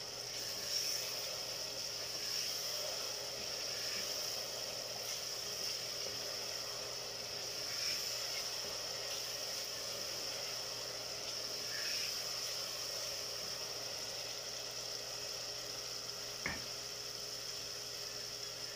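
Ginger-garlic paste and onion sizzling in hot oil in a metal pot as they fry toward golden brown: a steady frying hiss with a little stirring. One sharp click comes about sixteen seconds in.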